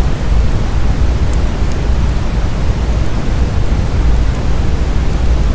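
Wood fire burning: a steady rushing roar with a low rumble, and a few faint crackles.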